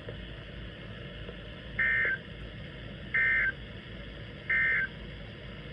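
NOAA Weather Radio sending three short electronic data bursts, evenly spaced about a second apart, over steady receiver hiss. These are the SAME end-of-message codes that close an alert, here a tornado warning.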